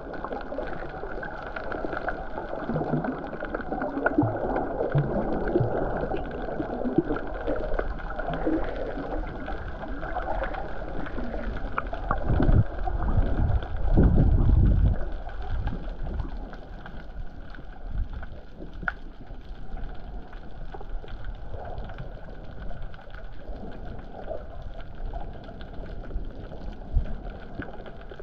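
Muffled underwater water noise picked up by a submerged camera, with scattered faint crackles and two louder low surges about halfway through.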